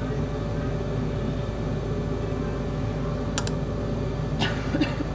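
Steady hum of a workshop fume extractor fan, with a few light clicks about three and a half seconds and four and a half seconds in.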